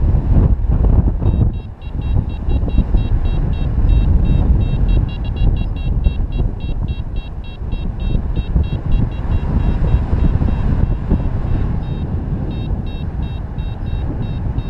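Heavy wind rush on the microphone of a paraglider in flight, with a variometer's fast, high beeping over it: the climb tone that signals the glider rising in a thermal. The beeping breaks off briefly around eleven seconds in, then resumes.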